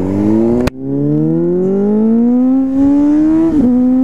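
Sport motorcycle's engine accelerating away from a standstill, its pitch climbing steadily through a gear, then dipping briefly and levelling off at a gear change near the end. A sharp click and short drop-out come about half a second in.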